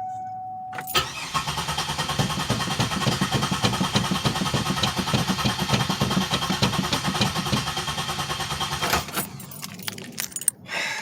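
A 2007 Pontiac Grand Prix's starter cranking the engine for about eight seconds without it catching, then stopping; a steady electronic dash chime ends just before the cranking begins. A crank-no-start, which the owner thinks may be spark plugs fouled from running rich.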